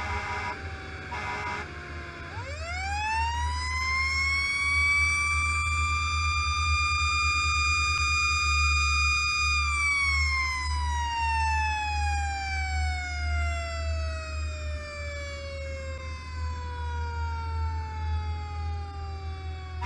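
Seagrave fire engine running with its mechanical siren and air horn: two short air-horn blasts near the start, then the siren winds up about two seconds in, holds a steady high wail for several seconds, and slowly winds down through the rest. A steady low engine rumble runs underneath.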